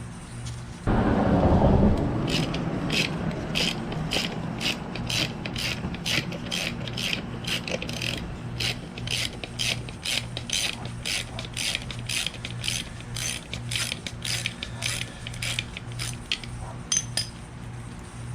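Hand ratchet clicking steadily, two to three clicks a second, as it backs out the screws of an air compressor's end cover. A loud clatter about a second in comes before the clicking starts.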